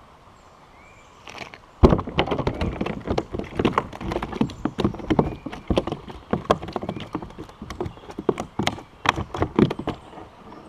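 A run of irregular knocks and taps on a plastic sit-on-top kayak. One sharp, loud knock comes about two seconds in, then many quicker taps and clatters follow until near the end.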